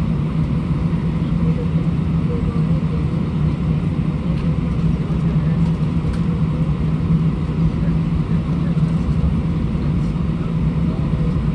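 Cabin noise of an Airbus A320 taxiing: the jet engines and cabin air running at a steady level, heard from inside as an even low rumble with a constant hum.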